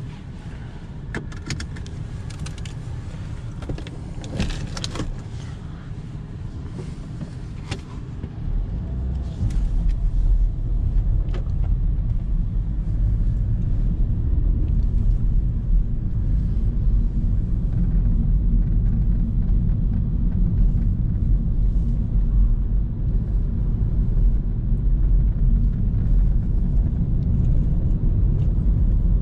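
Renault Megane 4 getting under way and driving, a steady low road-and-engine rumble that comes in loudly about eight seconds in. Before it there are scattered sharp clicks and knocks.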